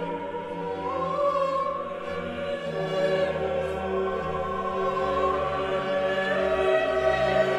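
A choir singing slow sacred music in long, held notes, several voices overlapping.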